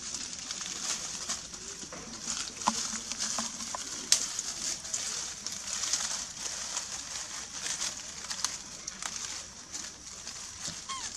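Dry leaf litter crackling in many short clicks as long-tailed macaques shift and move about in it, over a steady high hiss, with birds calling faintly in the background.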